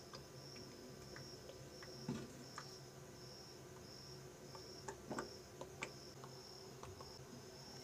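Wooden spoon working thick haleem in an aluminium pot, with a few soft knocks and plops about two seconds in and again around five to six seconds in. Underneath runs a faint high-pitched chirp that pulses about three times a second, along with a low hum.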